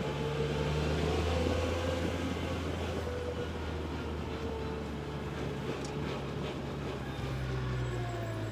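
A vehicle engine running steadily while driving: a continuous low hum that changes pitch slightly near the end.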